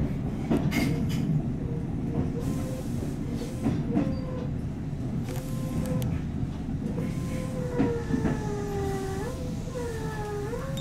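Tobu 8000-series electric train running, heard from on board: a steady rumble with a few rail-joint clacks. In the last few seconds a whine falls in pitch as the train slows for a station stop.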